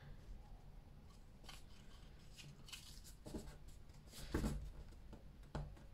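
Folded paper card being handled and pressed flat by hand: a few soft, scattered rustles and taps, the strongest about four and a half seconds in.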